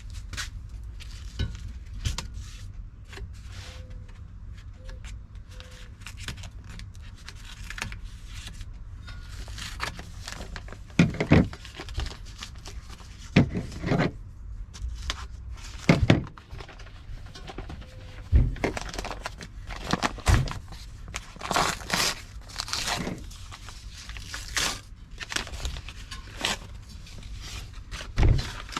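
Packing material being handled while a flat-packed patio table is unboxed: irregular crinkling and rustling, broken by a few louder knocks and thumps as parts are moved about.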